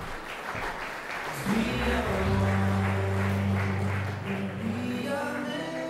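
Audience applauding, with music starting about a second and a half in: long held chords over a steady bass.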